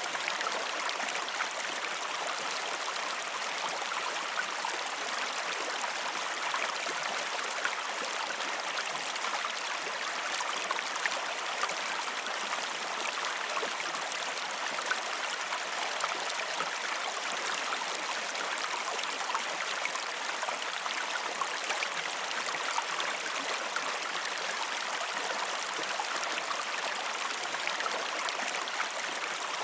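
River water flowing steadily, a continuous rush with small splashes and gurgles over it.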